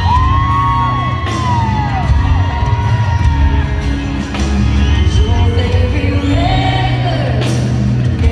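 Live country band playing loud through an arena sound system, with heavy bass and drum hits under a held, bending melody line, singing, and whoops from the crowd around the phone.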